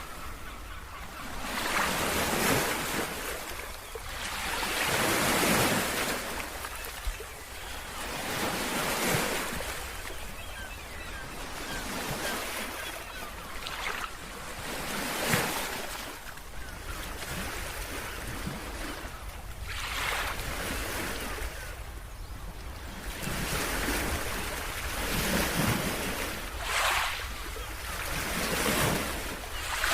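Sea waves breaking and washing up a beach, the surf swelling and fading every few seconds, over a steady low rumble of wind on the microphone.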